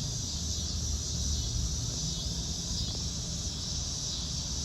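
Steady outdoor insect chorus, a continuous high-pitched chirring, over a low steady rumble.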